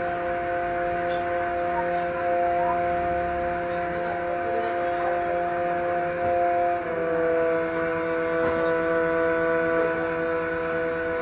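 Background music: a sustained chord of held tones that shifts to a slightly lower chord about seven seconds in.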